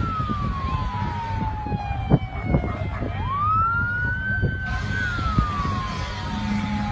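An emergency siren wailing in slow sweeps: a long fall in pitch, a quicker rise about three seconds in, a brief hold, then another long fall. A steady low rumble runs beneath it, with a couple of short knocks about two seconds in.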